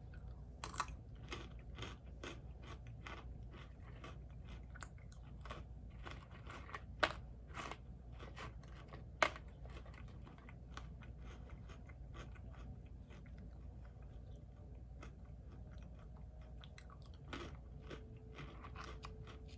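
Close-miked chewing and crunching of crisp pretzels, an irregular run of small crunches with two sharper, louder ones about 7 and 9 seconds in.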